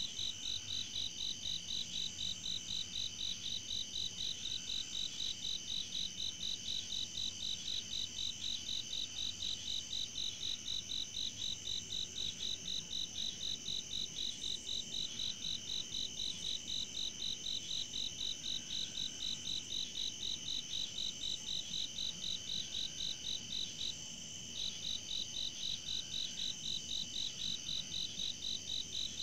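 Chorus of night insects: one chirps in a steady high pulse about two to three times a second over a continuous high trill, its pulsing breaking off briefly about 24 seconds in before resuming.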